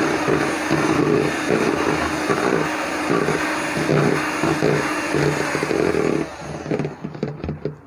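Electric hand mixer running, its twin beaters whisking cake batter; the motor cuts out near the end, followed by a few light clicks.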